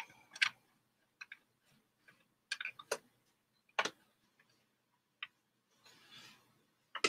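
Quiet, irregular sharp clicks and ticks, about a dozen, several bunched together about two and a half seconds in, with a brief soft hiss about six seconds in.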